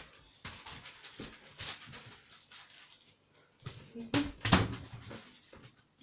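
Quick scuffing and tapping, then a couple of louder thuds about four seconds in.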